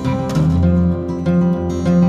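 Background music played on a strummed acoustic guitar.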